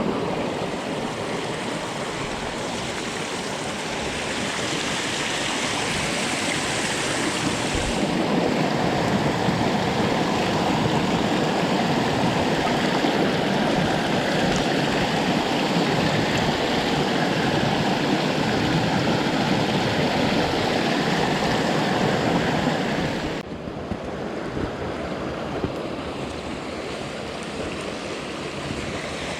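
Mountain stream water rushing steadily over rocks. The sound changes character about eight seconds in and becomes a little quieter near the end.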